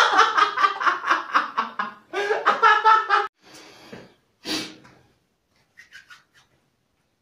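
A man laughing hard in quick repeated bursts, breaking off about three seconds in; a few faint short sounds follow, then near quiet.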